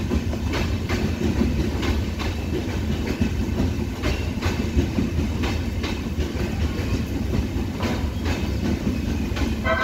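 Indian Railways express train's LHB passenger coaches rolling past slowly on arrival, wheels clacking over rail joints in an uneven rhythm of roughly two clacks a second over a steady low rumble, with rain falling.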